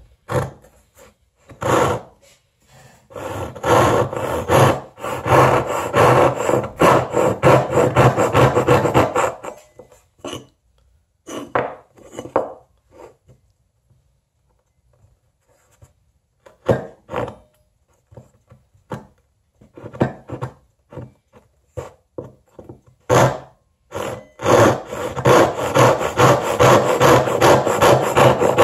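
Gyokucho Razor ryoba Japanese pull saw ripping a wooden board along the grain with its rip teeth, in quick rasping strokes. There is a steady run of strokes for several seconds, then scattered single strokes, and then a fast run again near the end.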